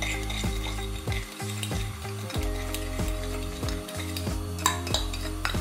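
Olive oil sizzling in a frying pan while a fork stirs and scrapes a beaten egg and breadcrumb mixture around a ceramic plate, with a sharp click near the end.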